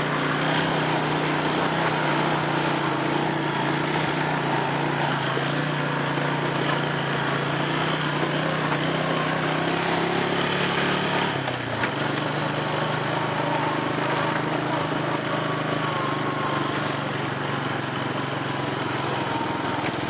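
Small engine of an off-road vehicle running steadily as it is ridden along a grassy track. Its note drops a little about halfway through.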